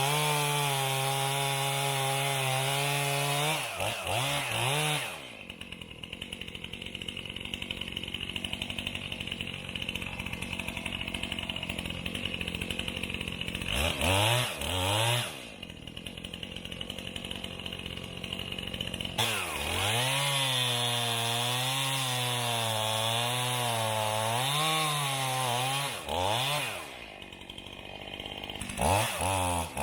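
Stihl MS271 two-stroke chainsaw cutting at full throttle, dropping back to idle between cuts with short revs up and down. During the second, longer cut its pitch rises and falls as the chain loads up in the wood.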